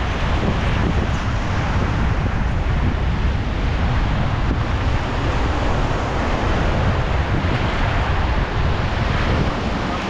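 Steady rush of whitewater river rapids around an inflatable raft, with wind buffeting the microphone and adding a low rumble.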